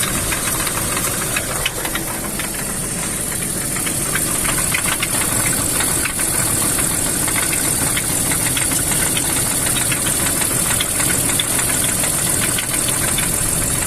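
BMW M54 straight-six engine running with a steady, rapid ticking knock from inside the engine, which the owner places more toward the top of the engine. It gets slightly louder about three seconds in.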